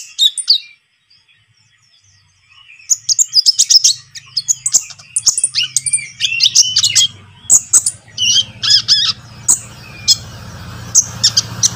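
Young sunbird (konin) singing: rapid, high, thin twittering chirps and short trills, broken by a pause of about two seconds near the start. A low steady hum comes in under the song in the second half.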